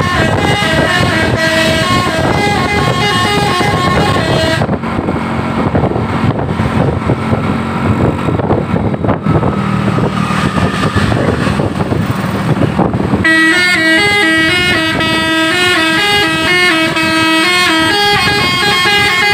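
Bus basuri (telolet) musical horn playing a melody in quick stepped notes. Over a long middle stretch it is half-buried under a loud rushing noise, then comes back clear and loud about thirteen seconds in.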